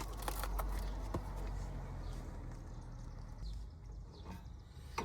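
A few light clicks and taps of steering parts being handled during an outer tie rod end installation, over a low steady hum.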